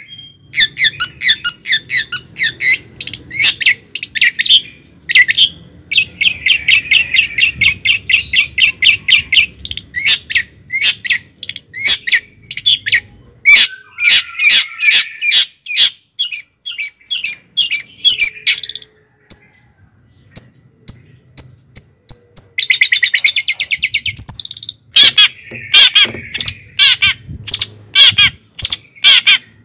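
A bird calling in rapid runs of short, high chirps and squawks, several notes a second, thinning to a few scattered notes for a few seconds in the middle.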